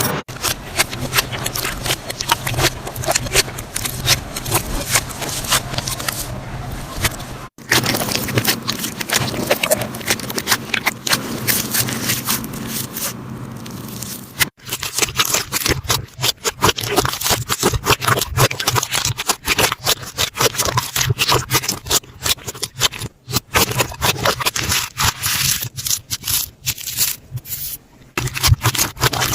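Slime being squished and pressed by hand: a dense run of small clicks and crackles, with brief breaks about a quarter and about halfway through.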